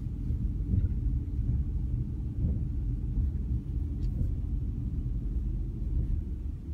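Steady low rumble of a car engine running.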